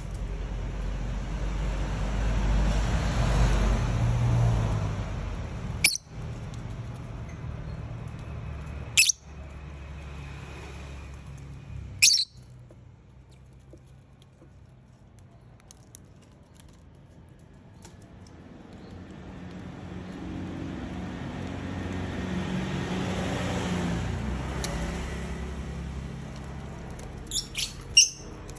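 Lovebirds giving a few short, sharp squawks, single calls spaced about three seconds apart and then a quick burst of several near the end. Traffic noise swells and fades twice beneath them.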